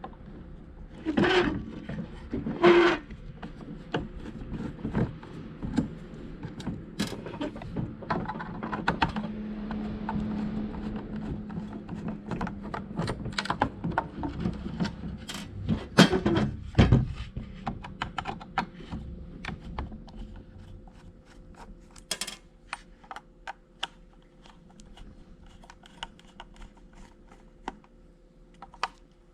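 Small clicks, taps and knocks of a plastic HVAC control panel and a small T6 Torx screwdriver being handled as the panel is taken apart, with a few louder knocks. A low steady hum runs underneath and fades out about two-thirds of the way through.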